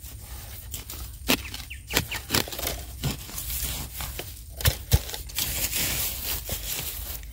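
Loose soil and dry bamboo leaves are scraped and tossed back into a hole dug for a bamboo shoot. There is crunching and rustling of dry litter with scattered sharp knocks, the loudest two close together about five seconds in.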